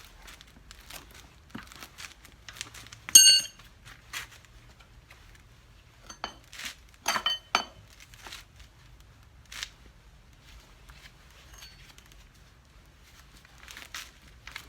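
Metal hand tools clinking and knocking during a cart-wheel tyre change, with handling and rustling noises in between. A loud ringing clink comes about three seconds in, and another ringing clink about seven seconds in.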